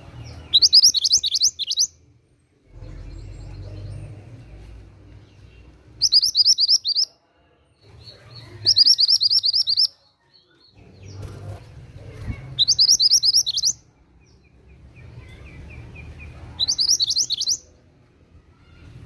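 A mantenan gunung songbird singing five short, fast trills of high repeated notes, each about a second long, a few seconds apart, over a faint low background rumble.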